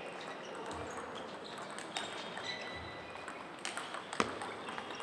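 Table tennis ball clicking off the bats and table during a rally. A few sharp clicks, the loudest about four seconds in, with fainter clicks from play at neighbouring tables.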